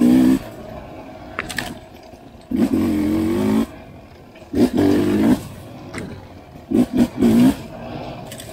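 Enduro dirt bike engine revving in short bursts of throttle, four or five blips with the engine falling back between them. There are a few sharp clacks in between.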